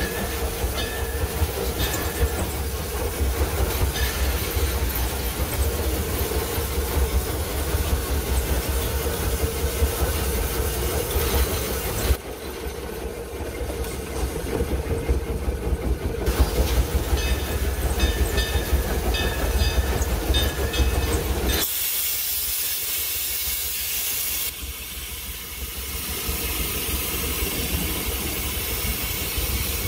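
Steam locomotive running, heard from inside its cab: a steady low rumble and clatter with steam hissing. About twenty-two seconds in, the rumble drops away and a sharp hiss takes over for a few seconds.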